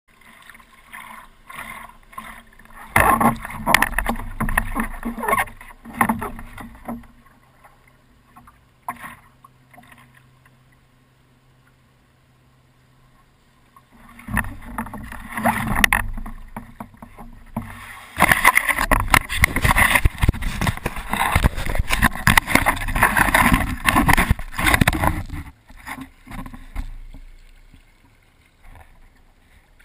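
Water splashing and sloshing against a wooden stand-up paddleboard and the camera on its deck as it is paddled, coming in irregular loud bursts with a quieter stretch in the middle.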